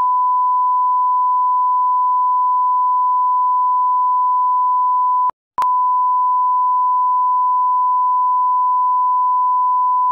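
Colour-bar test tone: one steady, pure, loud beep, broken by a short gap about five seconds in.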